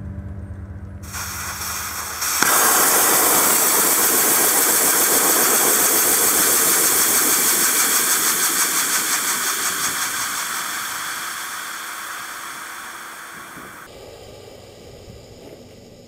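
Pressurised gas venting from an air conditioner's refrigerant lines through the service hoses: a loud, even hiss that starts about two and a half seconds in after a fainter lead-in, then weakens gradually as the pressure bleeds off and stops.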